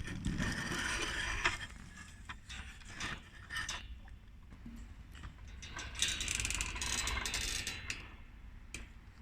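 Small plastic toy parts handled and clicked together: a run of light clicks, rattles and scrapes, busier about six seconds in.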